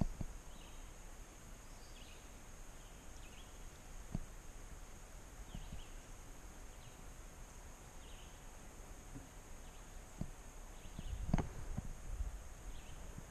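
Faint, scattered bird chirps over quiet outdoor ambience, with a few dull knocks, the loudest about eleven seconds in.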